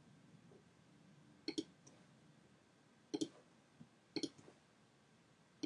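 Computer mouse clicking four times, each a short sharp press-and-release click, about a second or more apart, as guide lines are placed in a drawing program.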